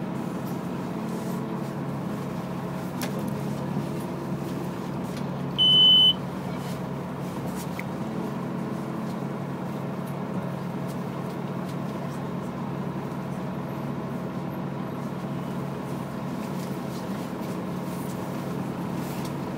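Steady running hum inside a moving public-transport vehicle's cabin. About six seconds in there is one short, loud, high-pitched beep.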